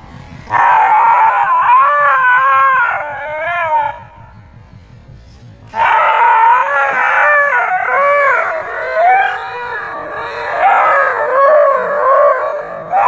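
Young dog howling and screaming in fright at a fake tiger toy, long wavering cries that swing up and down in pitch. The cries come in two bouts, broken by a short pause about four seconds in.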